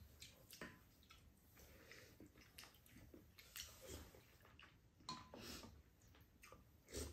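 Faint eating sounds: spoons clicking and scraping against ceramic bowls and the pan, with soft chewing and slurping of stew broth. One brief ringing clink comes about five seconds in.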